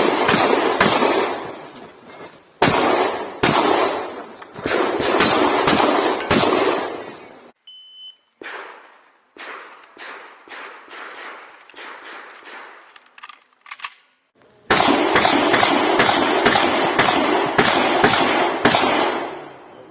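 Shotgun fired in rapid strings of shots in a practical shooting stage. About eight seconds in a shot-timer start beep sounds, followed by quieter shots and then another fast string of loud shots.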